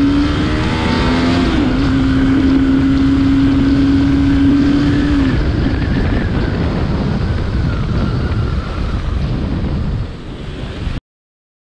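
Bajaj Pulsar NS200's single-cylinder engine, fitted with an aftermarket NMW Racing CDI, pulling steadily under way with wind rushing over the microphone. The engine note holds and rises slightly, then fades about five seconds in. Near the end the sound cuts off suddenly.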